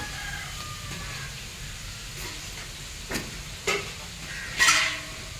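Steady background sizzle of food frying, with a few sharp knocks near the end as a stainless steel bowl of rice is set down and tapped on a banana leaf. The last and loudest knock has a brief metallic ring.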